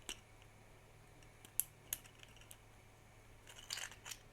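Small clicks of 3D-printed plastic joints being flexed and worked loose by hand: a few single clicks, then a quick run of clicks near the end.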